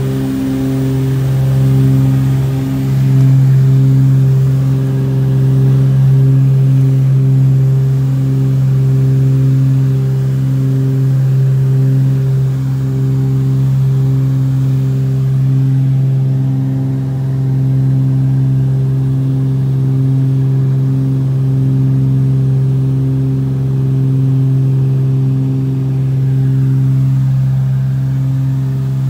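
Cabin drone of a Cessna 402C's twin turbocharged six-cylinder piston engines and propellers running steadily at power in the climb after takeoff. It is a loud, even hum with a slow throbbing beat between the two engines.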